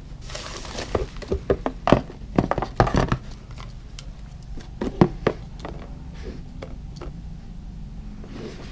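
A cardboard shoebox and a football boot being handled: rustling and a quick run of knocks and thuds over the first three seconds or so, then a couple more knocks about five seconds in.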